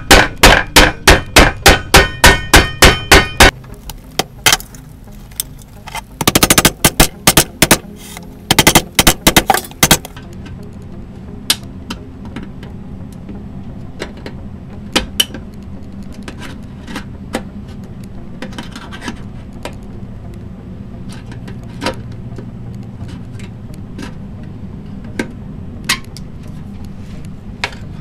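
A hammer striking tin-can metal, folding the cut flaps of the inner can down over the rim. The first few seconds hold a fast, even run of ringing blows, about three or four a second, with two more quick flurries of blows further in. After that there are only occasional light metallic clicks and taps.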